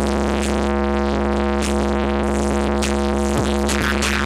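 Electronic dance music playing loud through a car-audio wall of 7Driver Thunder 5K woofers, with a steady deep bass note held under the track. A falling pitch sweep comes about three and a half seconds in.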